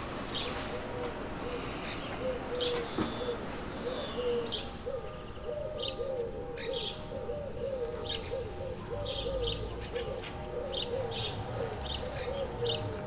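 Small birds chirping with a dove cooing in quick repeated notes; the cooing turns into an almost unbroken run from about halfway through.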